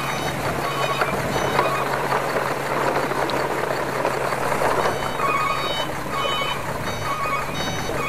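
Plastic toy trucks and trailers rolling over gravelly dirt, a steady rattling rumble, under background music with short repeated beeping notes.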